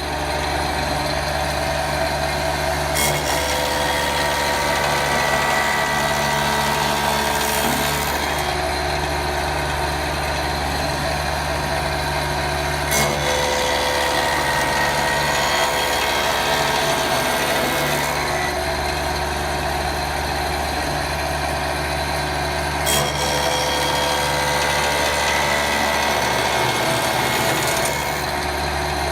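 CNC woodworking machine running steadily, a constant hum with a pattern that repeats about every five seconds and a sharp click every ten seconds or so.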